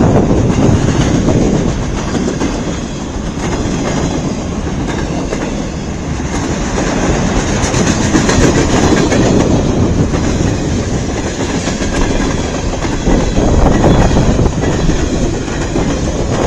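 CN freight train's cars rolling past fast, wheels clacking steadily over the rail joints.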